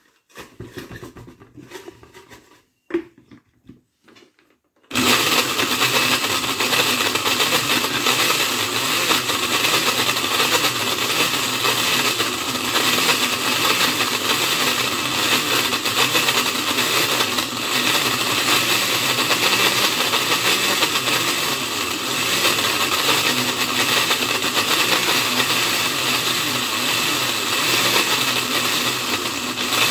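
A few light handling sounds as playing cards are dropped into a glass blender jar and the lid goes on. Then, about five seconds in, the countertop blender starts suddenly and runs steadily at a loud, even level, chopping up a pack of playing cards.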